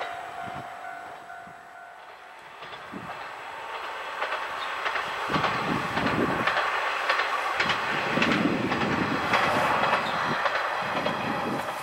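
Kanto Railway KiHa 2200-series single-car diesel railcar running past, its wheels clicking over the rail joints. The sound grows louder from about four seconds in, and a steady whine is heard in the first two seconds.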